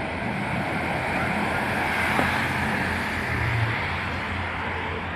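Road traffic: vehicle engines running with a steady rush of tyre and road noise, swelling as a car passes about two seconds in.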